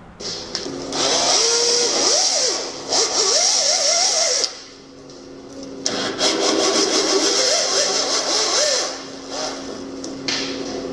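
A small motor runs in two long bursts with a short pause between, its pitch wavering up and down as it works.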